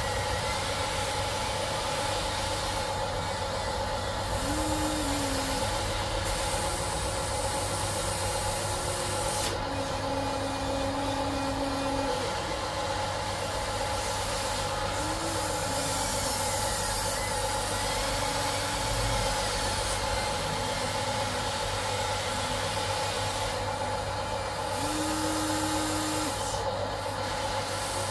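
Electric pump and motors of an RC hydraulic excavator model whining steadily as it digs and loads sand. A lower tone cuts in and out a few times as the hydraulics take up load.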